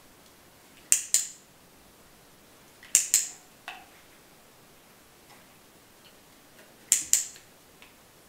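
Hand-held dog-training clicker pressed three times, each press a sharp double click-clack a fifth of a second apart, about a second, three seconds and seven seconds in, marking the moment the dog does the right thing.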